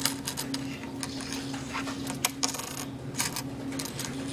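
Pennies clinking as they are counted out by hand: irregular small metallic clicks over a steady low hum.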